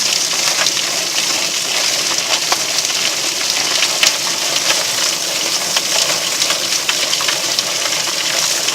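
Chicken plucker running with its water spray hissing steadily, scalded chickens tumbling against its rubber fingers with frequent irregular slaps and knocks.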